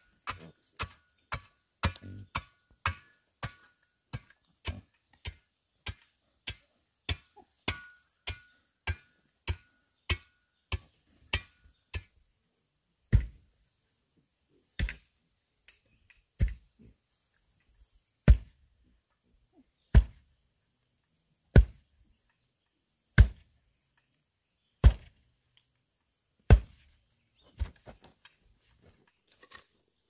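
Hand tools striking packed earth over and over. First come quick, light knocks about one and a half a second as soil is pounded down with a wooden pole. About halfway in they give way to slower, heavier thuds about every second and a half, like a hoe chopping into hard ground.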